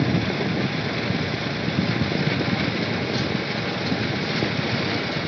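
Steady rushing rumble heard while riding a cable car high over a valley: wind on the microphone mixed with the car's running noise.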